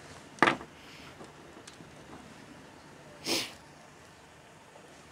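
A single sharp knock about half a second in, as a lead sinker rig is set down on the table. A quick sniff through the nose follows about three seconds later, over faint background hiss.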